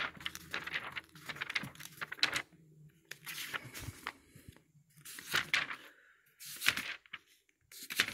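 Thin Bible pages being turned by hand in quick succession: a string of short paper swishes and rustles with brief pauses between them.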